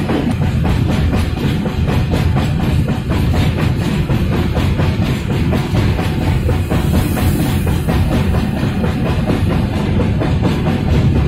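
Background music with a drum kit beat.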